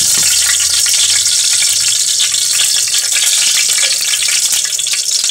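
Ghee melting and sizzling in a hot aluminium pot as a steel spoon stirs it around the bottom, a steady high hiss. There is a single spoon knock against the pot right at the start.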